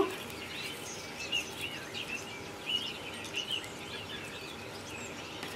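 Small songbird chirping and twittering quietly in short, scattered calls, over a faint steady background hiss.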